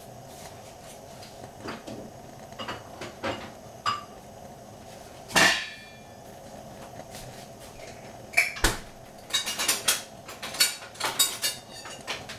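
Kitchen clatter of dishes and utensils being handled: scattered knocks and clinks, one loud knock about five seconds in, and a quick run of clinks in the last few seconds.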